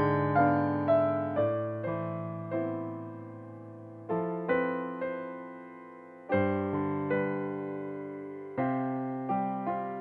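Background solo piano music: slow notes and chords that ring and fade, with fresh chords struck about four, six and eight and a half seconds in.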